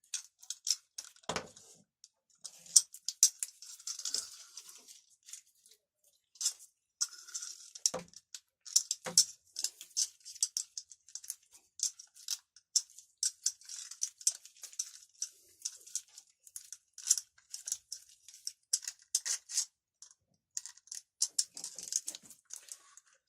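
Starter cord being wound by hand onto the reel of an Ural chainsaw's recoil starter: an irregular run of light clicks, scrapes and rustles of cord and parts being handled, with a few duller knocks.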